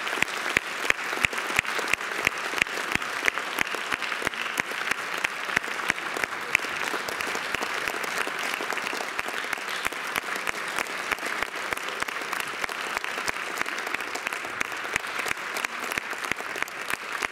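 Audience applauding, with one nearby clapper standing out in a steady beat of about three claps a second at the start and again near the end.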